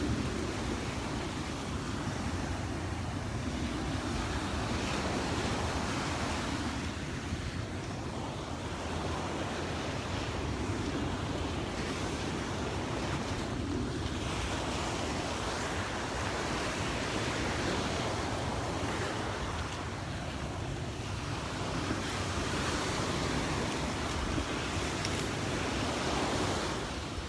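Gulf of Mexico surf breaking and washing up the beach, swelling and fading every few seconds, with wind rumbling on the microphone.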